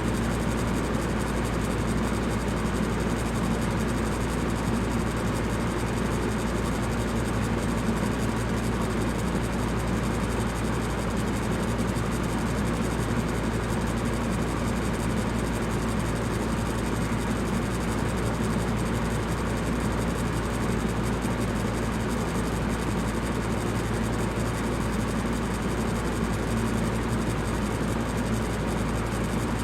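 Electric fan running steadily: an even rushing whoosh of moving air over a low motor hum, unchanging throughout.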